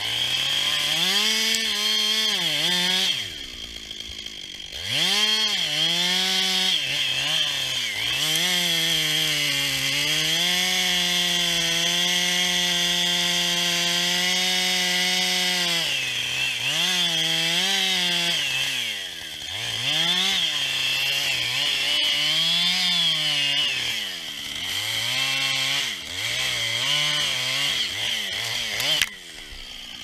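Husqvarna 560 XP two-stroke chainsaw cutting a face notch into a spruce trunk. The engine revs up under load as the chain bites and eases off again and again, with long stretches held at steady full revs. It drops back to idle briefly a few seconds in and again near the end.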